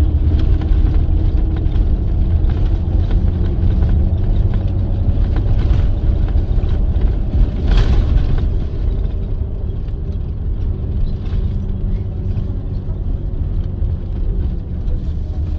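Bus engine running and road rumble as the bus drives along, with small rattles and one sharp knock about eight seconds in.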